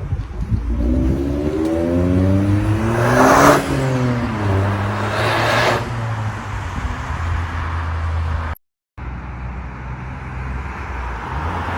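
Toyota GR Corolla's turbocharged 1.6-litre three-cylinder revving up for about three seconds. On lift-off, a rush of turbo flutter comes through the open cold air intake as the revs fall. A second, shorter flutter follows about two seconds later, then the engine runs on at low revs.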